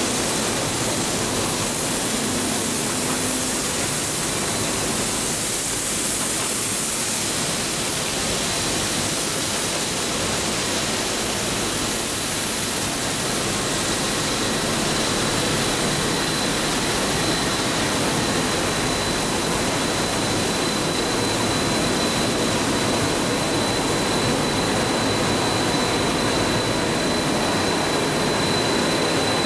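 Coil car mat production line running: a steady, even machine noise from the extruder and line machinery, with a thin steady high whine.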